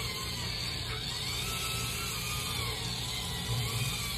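Small electric facial cleansing brush running, its motor giving a steady hum with a faint pitch that drifts up and down.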